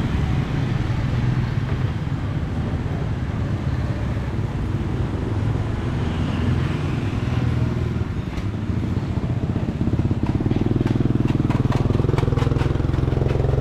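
A road vehicle's engine running steadily amid traffic noise. It grows louder and more even about ten seconds in, with a run of short clicks in the second half.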